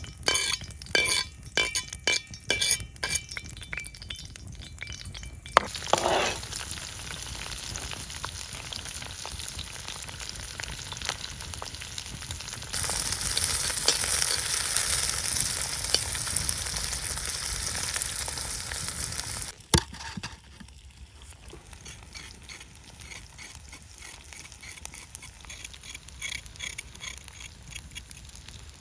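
Food sizzling in a hot pan, after a few seconds of utensil clinks and knocks. The sizzle starts suddenly, grows louder about halfway through and cuts off with a click, leaving faint crackling.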